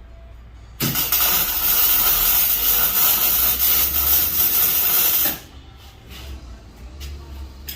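Welding arc burning for about four and a half seconds, a loud steady hiss that starts and stops abruptly. It is run with the shielding gas turned off.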